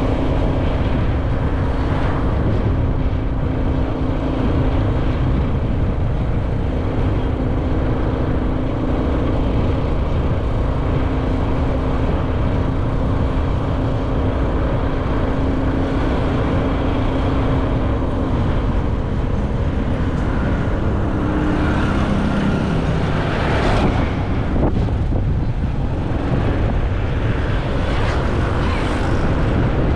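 Motorcycle engine running steadily under heavy wind rumble on the microphone while riding. Its note rises and then drops a little about two-thirds of the way through.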